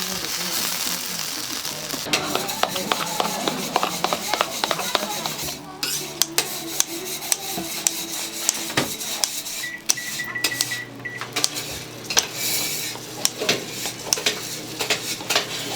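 Metal utensils clattering and scraping against pans and dishes, with food sizzling on the heat. A brief high beeping tone sounds about ten seconds in.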